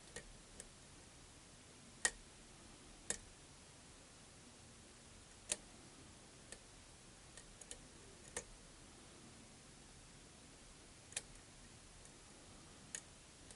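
Sparrows Gem pick working the pins of a challenge lock under tension: faint, sharp clicks, about ten of them at uneven intervals, with a few close together around the middle.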